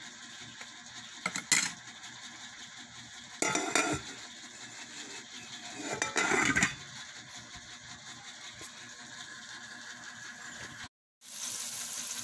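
Chopped onion and garlic sizzling in oil in a rice cooker's inner pot. A sharp clink comes about a second and a half in, then the glass lid clatters against the pot twice. The sizzle is louder after a brief dropout near the end.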